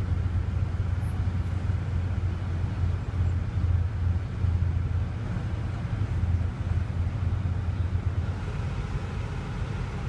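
Steady low engine rumble with a faint haze of traffic noise, holding even throughout with no distinct events.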